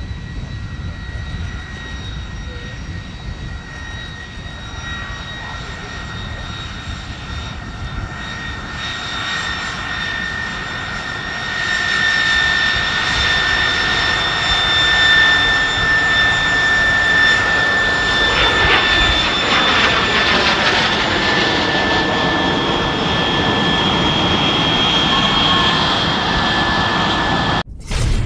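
Twin Rolls-Royce Derwent turbojets of a Gloster Meteor T.7 running at taxi power: a steady high-pitched turbine whine over a rumble, growing louder about twelve seconds in as the jet comes closer. The sound cuts out abruptly near the end.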